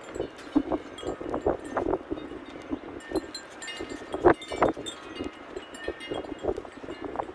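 Irregular clinking, chime-like tones in gusty wind, with wind buffeting the microphone.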